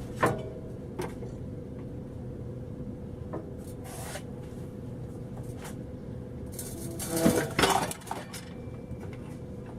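Metal clinks and clanks of tools and exhaust parts being handled during a car exhaust swap: a couple of single clinks early, then a louder cluster of clanks near the end, over a steady faint hum.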